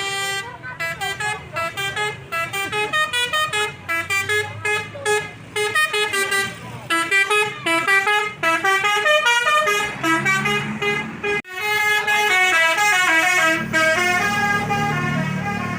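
Telolet bus horn, a multi-tone "basuri" air horn, playing a fast melody of short notes. After a brief break about eleven seconds in it plays longer falling notes, with the bus engine rumbling underneath.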